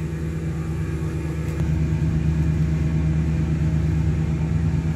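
A steady low hum of running machinery.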